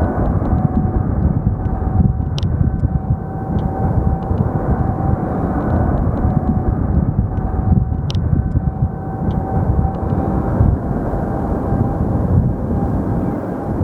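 Boeing 747 jet engines running, a loud steady rumble with a thin steady whine over it. Two short clicks are heard, at about two and a half and eight seconds in.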